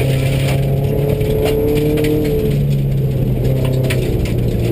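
Subaru rally car's flat-four engine running hard on a gravel stage, heard from inside the cabin. The engine pitch steps briefly about halfway through. Gravel, stones and cabin fittings rattle and clatter all the way through.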